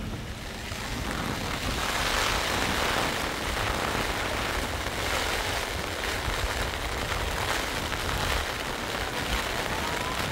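Steady hiss of rain, getting louder about a second and a half in, with wind rumbling on the microphone.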